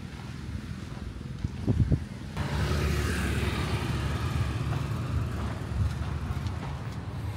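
A motor vehicle engine running with a steady low hum, two short knocks a little before two seconds in, then louder engine noise starting suddenly about two and a half seconds in and carrying on.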